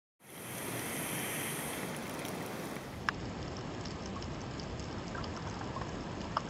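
Underwater ambience picked up by a diving camera: a steady rushing hiss of water, with a sharp click about three seconds in and another near the end.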